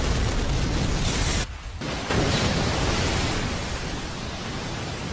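Anime sound effect of a huge fire blast: a dense, bass-heavy rushing rumble of flames. It cuts out briefly about a second and a half in, then comes back and eases off toward the end.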